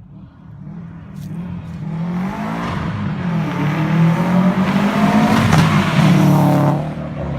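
Subaru WRX hatch's turbocharged flat-four through a loud aftermarket exhaust, accelerating hard: the engine note rises and grows louder over the first few seconds, stays loud, then eases off near the end.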